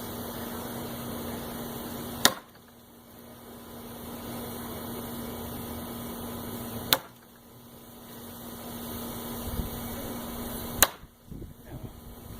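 Three heavy steel throwing knives striking a wooden 2x4 target, one sharp hit every four to five seconds, over a steady background hum.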